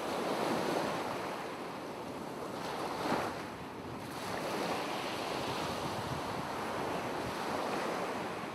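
Ocean waves washing, a steady rushing noise that swells once about three seconds in.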